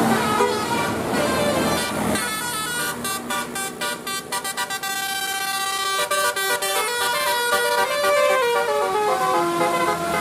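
Tour bus's telolet Basuri musical horn playing a tune of stepping notes, with a run of quick short notes about two seconds in and more stepped notes after about six seconds.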